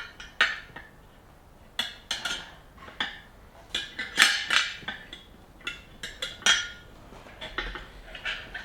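Metal tyre levers clinking and scraping against a motorcycle wheel rim as the tyre's bead is levered on, in irregular sharp clanks, some of them ringing briefly.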